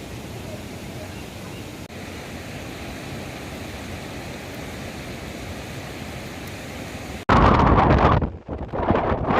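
Steady rushing of a flowing river. About seven seconds in, a sudden cut brings a much louder rush with wind on the microphone, which dips briefly before coming back.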